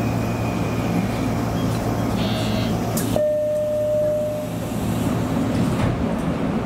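Steady hum and rumble inside a Nishitetsu electric train near the front cab. About three seconds in there is a sharp click, followed by a steady tone that lasts about a second and a half.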